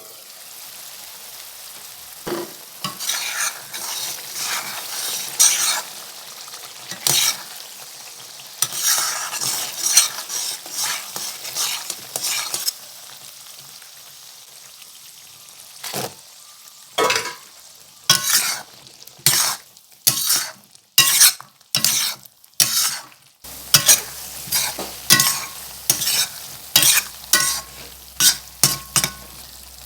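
Utensil stirring and scraping a sizzling matar paneer curry in a pan, in repeated short strokes over a steady hiss. The stirring pauses for a few seconds midway, then resumes faster, roughly one stroke a second.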